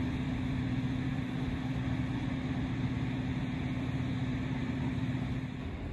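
VR Sr2 electric locomotive humming steadily, a low two-note drone over a rushing background noise. The hum cuts off near the end.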